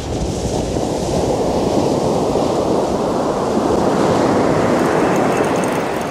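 Sea surf washing onto the beach: a steady rush of waves that swells over the first few seconds and eases off slightly near the end.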